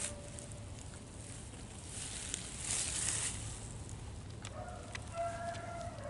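Beagles baying on a rabbit's trail, several drawn-out bawls at different pitches overlapping, starting about four and a half seconds in. The baying is faint.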